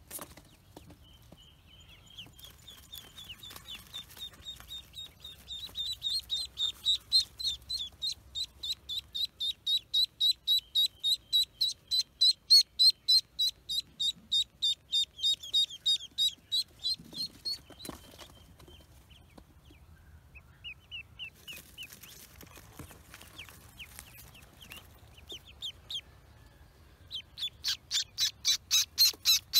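A duckling peeping: long runs of rapid, evenly spaced high peeps that grow louder, break off for a couple of seconds past the middle, then come back and end loud.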